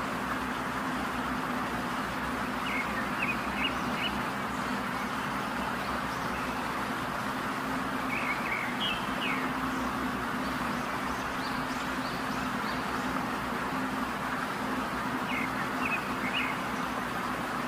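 Small birds chirping in three short runs over a steady hiss with a low hum.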